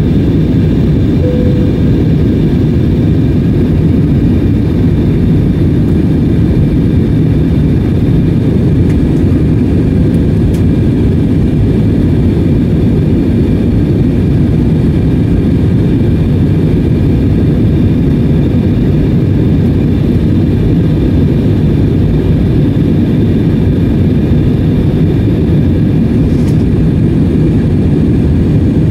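Steady cabin noise of an Airbus A320-family jet airliner climbing after take-off, heard from a window seat: a dense low rush of jet engines and airflow with a few faint steady whines above it.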